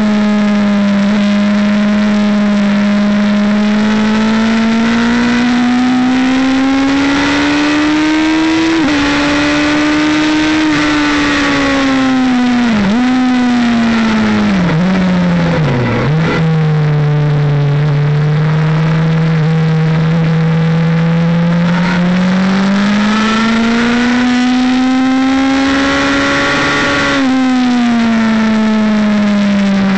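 Racing motorcycle engine heard from an onboard camera, over steady wind and road noise. The engine climbs in pitch under acceleration, then falls with three sharp dips around the middle as it shifts down under braking. It holds low and steady for several seconds, climbs again, and drops near the end as the bike slows for a corner.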